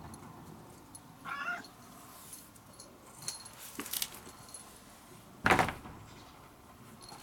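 A domestic cat gives a short meow about a second in, followed by a few light clicks, and a loud thump about five and a half seconds in as it lies rolling on the concrete floor.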